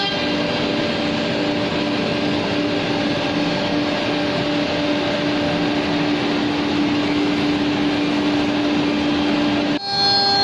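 CNC router's spindle cutting plywood: a steady whine under a loud, even cutting noise. It cuts off abruptly just before the end, giving way to a higher-pitched whine.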